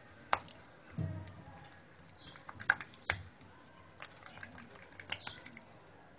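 Hands patting and pressing soft msemen dough flat on a granite countertop: scattered sharp taps and slaps, with a dull thump about a second in.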